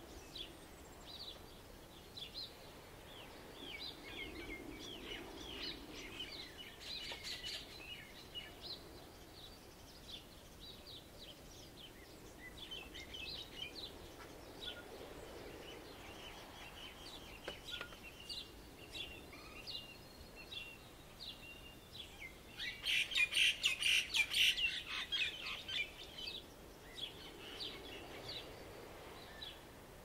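Dawn chorus of birds: many short, high chirps and calls throughout, with a louder run of rapid chirping about three-quarters of the way through. Beneath them, waves wash softly on the shore, swelling and fading every ten seconds or so.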